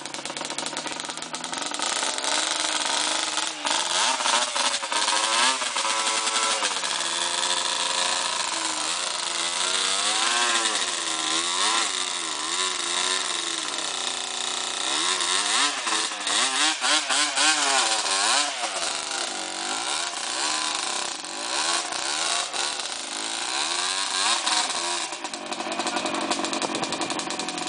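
ATV engine revving up and down over and over under load as the quad churns through a deep mud hole, easing back to a steadier note near the end.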